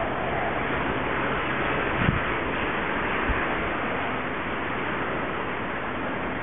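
Steady outdoor rushing noise, with two brief low thumps about two and three seconds in.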